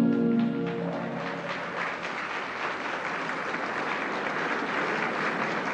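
A crowd applauding steadily, with the end of a held music chord fading out in the first half second.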